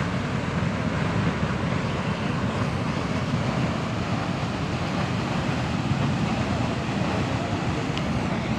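Geyser erupting: a continuous jet of hot water and steam blasting upward, heard as a deep, steady rushing noise that does not let up.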